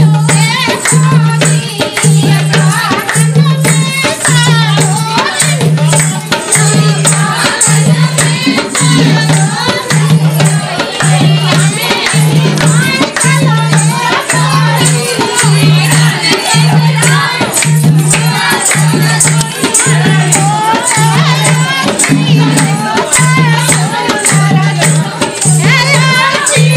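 Rural north Indian folk dance song: singing over a steady low beat a little over once a second, with shaken rattles or jingles.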